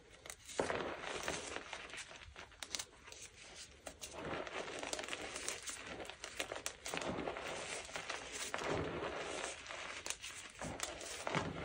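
Gym chalk mixed with cornstarch being crushed and crumbled: continuous crunchy crackling with many small snaps, starting about half a second in with brief lulls.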